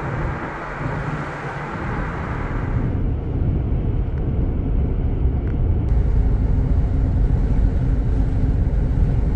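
Road and wind noise of a Subaru Outback driving, heard from inside the cabin. A hissing rush breaks off abruptly about three seconds in, leaving a deep, steady rumble that grows louder in the second half.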